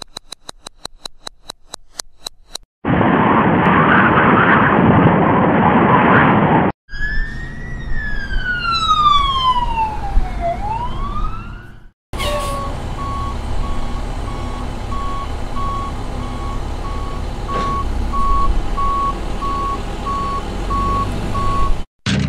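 A run of sound effects. First comes rapid, evenly spaced ticking, the effect of time rewinding. From about three seconds in there is loud rushing wind from a tornado, then at about seven seconds a police car siren wailing down and back up in pitch, and from about twelve seconds a garbage truck's reversing alarm beeping steadily over its running engine.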